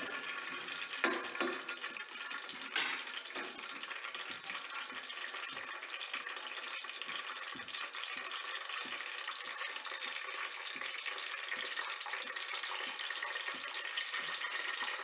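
Whole spices tempering in hot oil and ghee, sizzling steadily, with a few sharp clinks of a steel ladle against the pot in the first three seconds.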